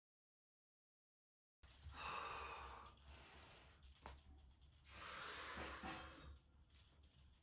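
A person breathing out heavily while stretching: two long exhales, about two and five seconds in, with a single click just after four seconds. The first second and a half is dead silence.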